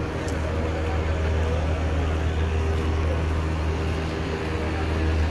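Steady low mechanical hum in a covered road underpass: a deep, even drone with a few held tones above it.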